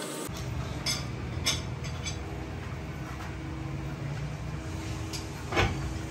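Steady hum of workshop machinery with a few short metallic clinks and one louder knock about five and a half seconds in.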